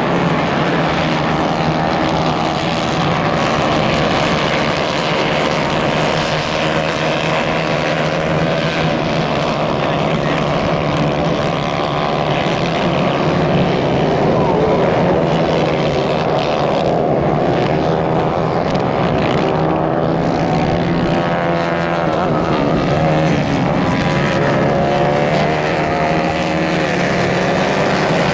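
A pack of 150 cc dirt-track racing karts running together, their small engines buzzing in a steady drone of several overlapping pitches that rise and fall as the drivers accelerate and lift off.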